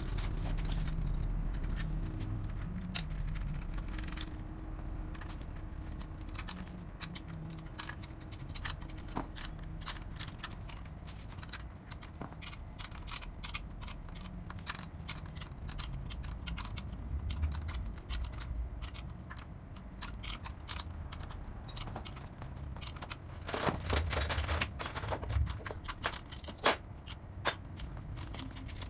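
Light metallic clicks and clinks of hand tools and parts on a child's bicycle being assembled, around the front wheel hub, with a run of louder clinks near the end.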